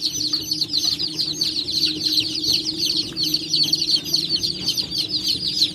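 A brood of about a hundred day-old kampung chicks peeping loudly and without pause, many short high calls overlapping, over a steady low hum. The chicks are newly housed in a brooder box and still stressed.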